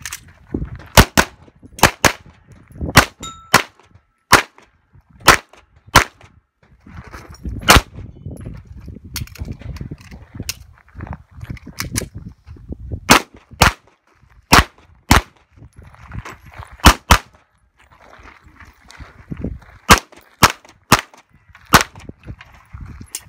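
Pistol shots fired in quick pairs (double taps) while shooting a practical-shooting stage, about two dozen in all, with short gaps between strings as the shooter moves between positions.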